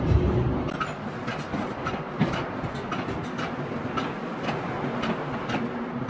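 Factory workshop noise: a steady low hum with irregular light clicks and knocks, about one or two a second, after a low thump at the start.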